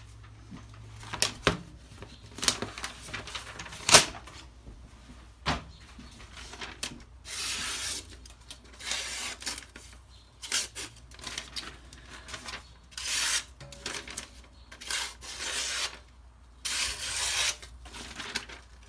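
A knife blade slicing through a sheet of paper in several separate hissing passes, testing the sharpness of a freshly stropped edge. Sharp clicks and knocks of handling come first, the loudest about four seconds in.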